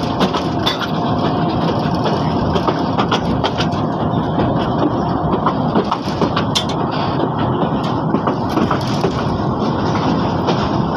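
Passenger train coach rolling slowly, about 16 km/h, over poor track: a steady loud rattle and clatter of the coach and wheels, broken by frequent sharp knocks.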